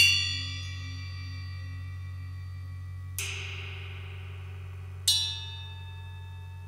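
Three strokes on ringing metal percussion: one right at the start, a softer, shimmering one about three seconds in, and another about five seconds in. Each leaves many clear high tones that fade slowly, over a steady low hum.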